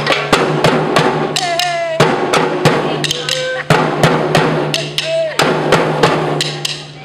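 Junk percussion: drumsticks beating a fast, steady rhythm on plastic barrels, buckets, a drum shell and a metal trash can, with a few short shouts from the players.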